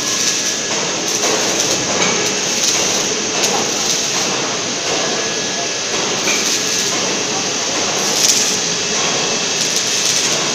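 Steady mechanical running noise from a submerged-arc welding gantry at work, with scattered faint clicks and crackle.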